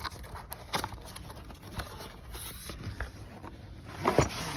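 A new KYB shock absorber being handled and taken out of its packaging: scattered light clicks, knocks and rustling, with a louder clatter about four seconds in.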